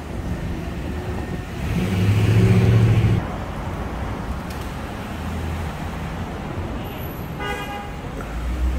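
Steady low rumble of idling vehicle engines in street traffic, with a loud low-pitched vehicle horn blast lasting about a second and a half that cuts off abruptly, and a short higher car-horn beep near the end.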